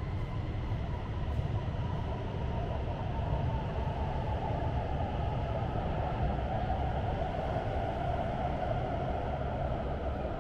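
Steady low rumble and hiss of an underground metro station on Guangzhou Metro Line 18, with a mid-pitched roar swelling in the second half.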